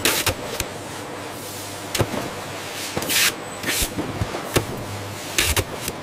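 Automated carton-taping machine on a packaging conveyor: steady machine noise with scattered clicks and knocks, and a few short hisses, one at the start, two close together about three seconds in and another near the end.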